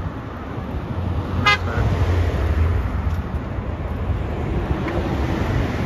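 Congested road traffic: vehicle engines running, with a heavy low engine rumble swelling between about one and three seconds in, and one short horn toot about a second and a half in.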